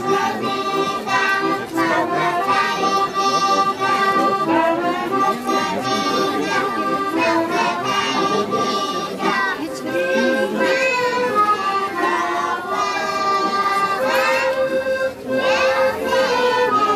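Accordion playing a folk tune in held, steady notes, with a child's voice singing over it.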